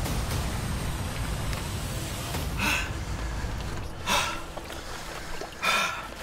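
A person gasping for breath three times, a short loud gasp about every second and a half, over a steady low rumble.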